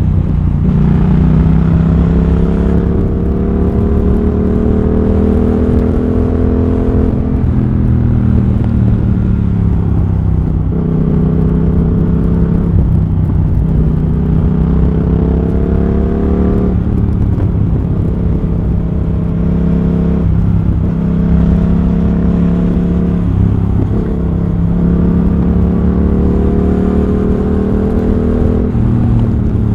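Triumph Thruxton RS parallel-twin engine through a British Customs GP slip-on exhaust with X-pipe, heard from onboard while riding. The engine note climbs steadily under throttle and drops back every few seconds, over and over.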